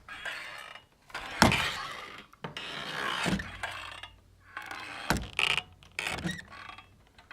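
Saloon-style swinging doors creaking on their hinges as they swing back and forth: a run of short creaks with gaps between, and two sharp knocks, the loudest about a second and a half in.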